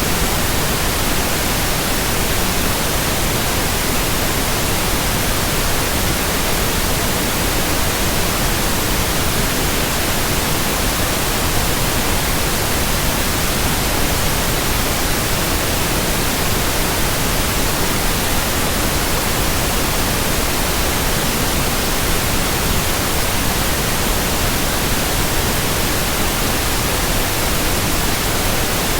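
Steady white noise: an even hiss across all pitches, constant in level, with no rhythm or swish.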